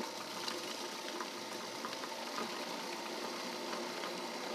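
Robot Coupe commercial food processor running as chickpeas are poured through its feed tube onto the spinning blade: a steady churning rush with scattered small ticks of chickpeas hitting the blade and bowl.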